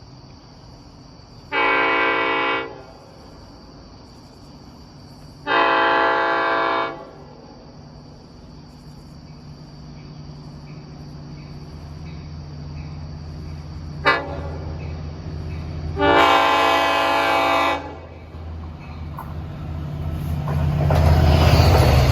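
Nathan K5LLA five-chime air horn on a DM30AC diesel locomotive sounding the grade-crossing signal: two long blasts, a brief toot, then a long blast. The train's engine and wheel rumble grow steadily louder toward the end as it approaches.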